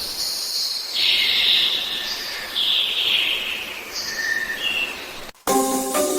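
High-pitched, hissing insect-like chirring whose pitch shifts in steps; it cuts off suddenly about five seconds in and plucked music starts.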